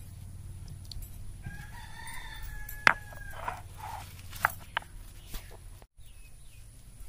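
A rooster crows once, about a second and a half long, beginning a little over a second in. Right after it come sharp knocks of a stone roller on a stone grinding slab as garlic, green chillies and cumin are crushed, the first knock the loudest.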